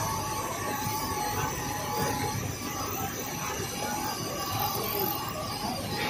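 Steady running noise of a glass-processing line: the roller conveyor carrying glass sheets away from the CNC drilling machine, with the drilling machinery running.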